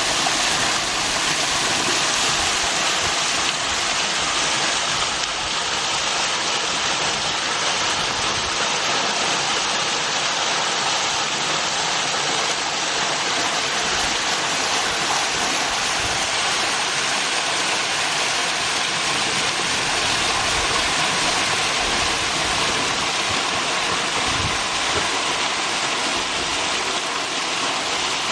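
Waterfall with a steady, even rush of falling water.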